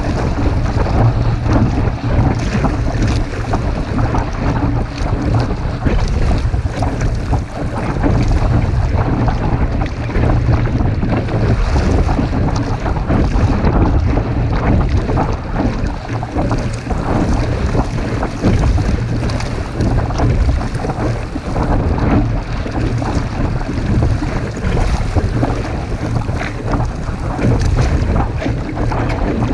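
Wind buffeting the microphone as a low, steady rumble, over water washing along the hull of a Sunfish sailboat under sail.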